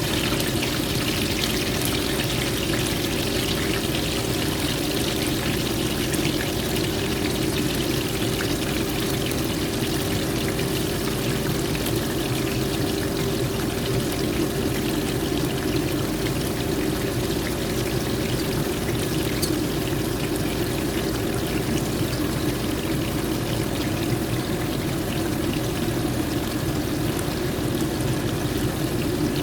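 A steady, unbroken rushing noise at an even level, with a constant low hum running through it.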